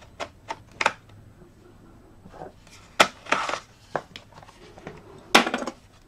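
Hard laptop parts handled on a workbench: three quick light clicks near the start, a sharp knock about 3 s in followed by a brief scrape, and another sharp knock near the end, as the SSD in its metal caddy is picked up.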